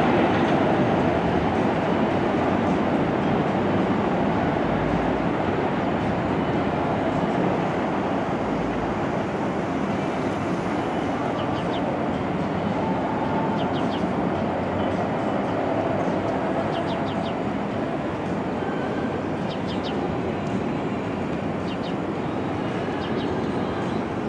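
Kawasaki R62 subway train running on an elevated steel viaduct: a steady rumble and rattle of wheels on rail that slowly fades as the train pulls away around a curve.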